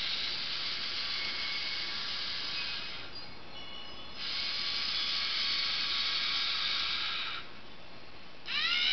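A Lego Mindstorms NXT robot's motors and gears whirring in two spells of about three seconds each, with a short pause between, as the robot works its way along a pole. Near the end comes a short screeching call that rises and falls in pitch.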